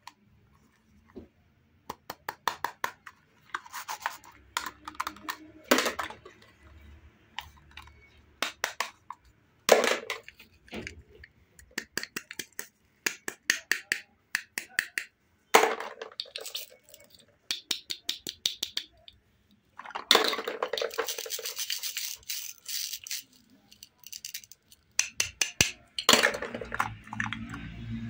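Hands handling hollow plastic toy fruit: runs of rapid plastic clicking and scratchy rubbing, broken by a few sharp knocks.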